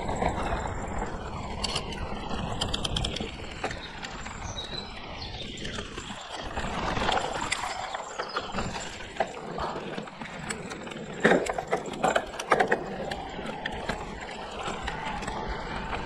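Hardtail e-mountain bike ridden fast over a dirt forest trail: a steady rush of wind on the microphone and tyre noise, with a quick cluster of sharp rattling knocks from the bike over bumps about eleven to twelve and a half seconds in.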